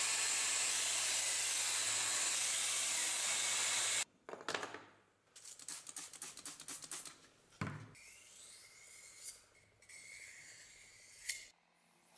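Small bench belt grinder running with the steel skinning-knife blade held against the belt, a loud steady grinding hiss over the motor's hum that cuts off abruptly about four seconds in. After it come quieter clicks, a quick run of short spraying and scraping strokes, and light handling of tools.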